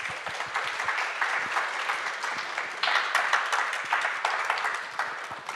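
Audience applauding, growing louder about halfway through and dying away near the end.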